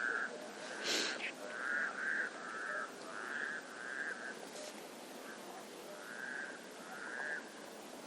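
Forest-lake wildlife calling: a run of short, evenly pitched calls repeated about every half second, pausing for a moment in the middle before two more. About a second in there is a brief, louder noisy sound over a faint steady background.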